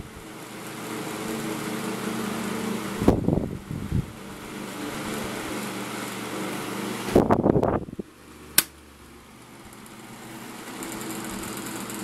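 1987 Ku Hsing 12-inch table fan running with a steady motor hum, its worn, sloppy bearings making it clack. Louder uneven bursts come around three and seven seconds in. There is a sharp click at about eight and a half seconds, after which the sound drops and slowly builds back up.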